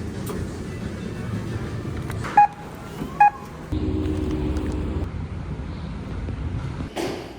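Two short, loud electronic beeps about a second apart over a low, steady vehicle-like rumble. A deeper hum with a steady tone comes in partway, and a sharp knock sounds near the end.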